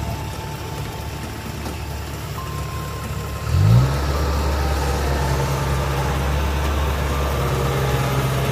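Diesel engine of a tracked rice-harvesting machine running steadily; about three and a half seconds in it revs up quickly, then keeps running louder and steady.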